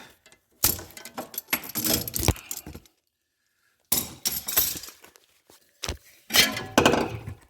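Metal tools and car parts clinking and clanking as the clamp and puller are taken off a freed front axle. The sound comes as a run of irregular knocks and jangles, stops dead for about a second in the middle, then carries on.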